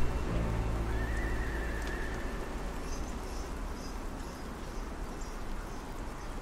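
A horse whinnies once about a second in, a short wavering call, followed by light hoof clops, over a steady low city rumble.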